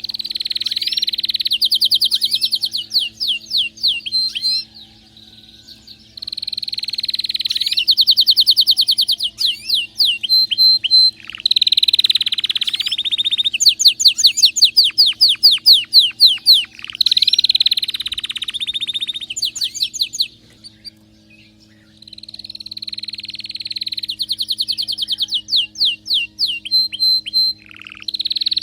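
Canary in excited full song: long phrases of rapid, repeated high trills, each phrase lasting several seconds, with two short pauses.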